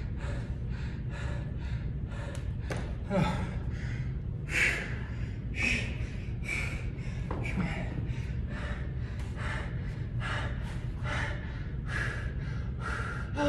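A man breathing hard and fast through the mouth, a quick even run of heavy breaths about two a second, winded from heavy dumbbell exercise.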